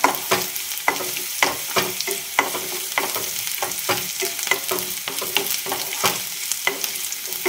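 Shallots, curry leaves, green chillies and coconut pieces sizzling in hot oil in a small kadai while they brown, with a spatula scraping and tapping the pan at irregular moments as they are stirred.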